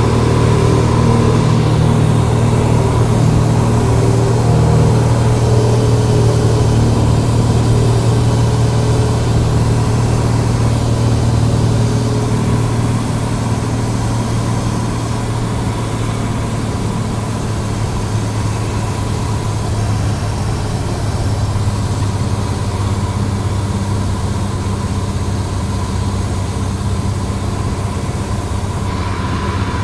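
Cessna 172's piston engine and propeller running steadily, heard from inside the cabin. It gets a little quieter about halfway through.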